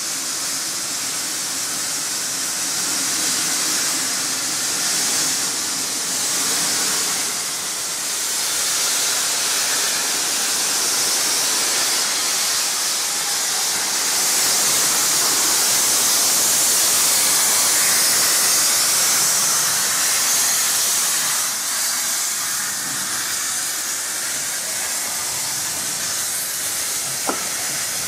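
Steam hissing steadily from SECR C class 0-6-0 locomotive No. 592, swelling louder for several seconds in the middle, with a short click near the end.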